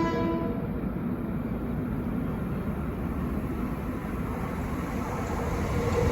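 A diesel locomotive's multi-chime air horn chord cuts off about half a second in. It leaves the low rumble of the locomotive's engine, which grows louder near the end as the locomotive draws closer.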